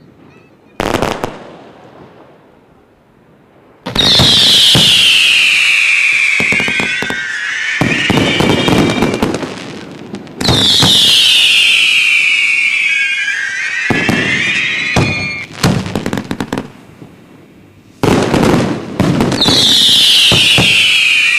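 Fireworks display: a single bang about a second in, then three volleys of whistling fireworks starting about four, ten and eighteen seconds in. Each volley is a cluster of shrill whistles sliding down in pitch over a few seconds, over a run of cracks and pops.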